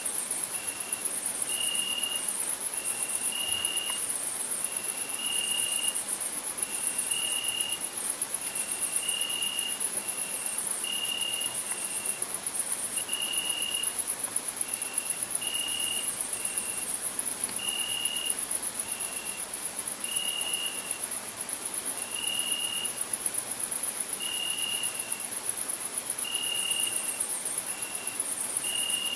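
Crickets singing: a continuous very high-pitched shrill trill, with a lower, clearer chirp repeated about once a second over it, alternating a longer note and a shorter one.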